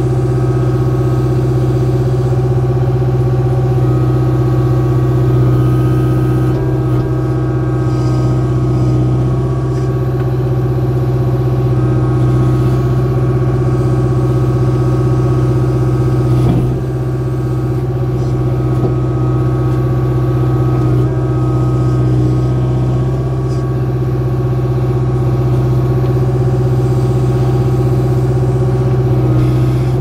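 Kubota KX057-4 mini excavator's four-cylinder diesel engine running steadily at working revs as the machine swings and works its bucket and thumb to grab a log round.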